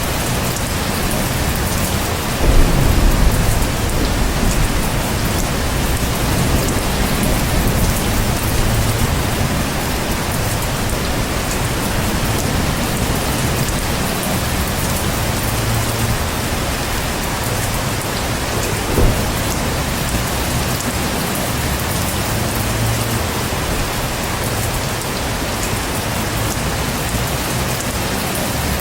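Heavy rain falling steadily. A short low rumble of thunder rises over it about two and a half seconds in, and a single brief thump sounds about two-thirds of the way through.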